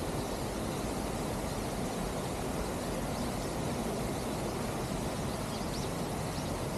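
Steady city background noise: a constant hiss over a low rumble of distant traffic, with a few faint high chirps in the second half.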